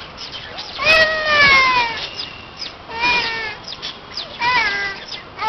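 Small Indian civet calling from its cage: a call about a second long that falls in pitch, then two shorter falling calls.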